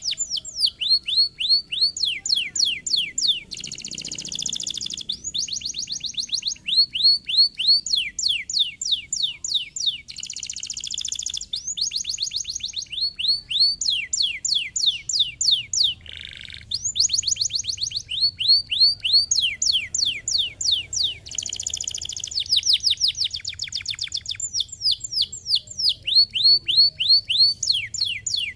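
Domestic canary singing a long, fast song: rolls of rapidly repeated falling notes, several rolls in a row, broken up by short buzzy trills. The song goes on almost without pause, with a brief lower buzzy note about halfway.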